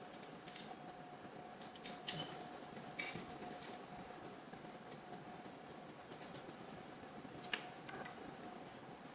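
Faint, scattered clicks and taps of small metal parts and a hand tool as a mounting plate is tightened onto a trolley stand, four or five sharp ones spread through, over a faint steady hum.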